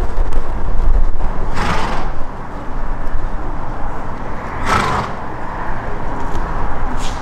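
Wind buffeting the camera microphone, heavy for the first two seconds and then easing. Two short rushing noises come about two and five seconds in.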